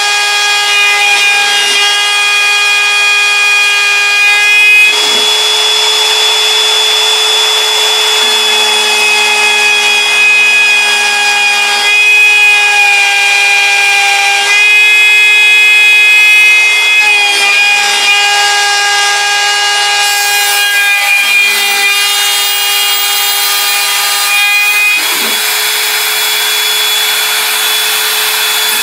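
Bosch Colt trim router running at high speed on a CNC Mogul, its two-flute bit cutting through bamboo board. It makes a steady high whine over a cutting hiss, with the pitch of its tones shifting and a lower hum coming and going every few seconds.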